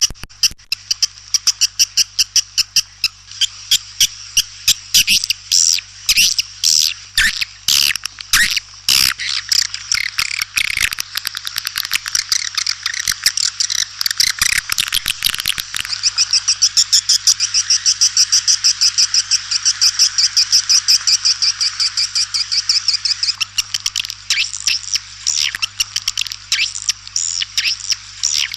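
White-nest swiftlet calls: a dense stream of rapid, high chirping twitters, many a second, growing more even and continuous about halfway through. This is a swiftlet 'calling' sound of the kind played to draw swiftlets into a nesting house, with a low steady hum beneath it.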